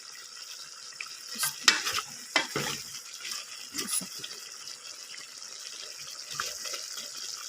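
Chicken feet cooking in adobo sauce in a pan, with a steady hiss. A spoon scrapes and knocks against the pan several times during the first half as the pan is stirred.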